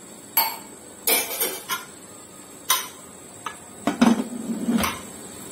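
Aluminium pressure-cooker lid handled and fitted onto the cooker: a string of sharp metallic clanks and scrapes, with a quick cluster of them about four seconds in as the lid goes on.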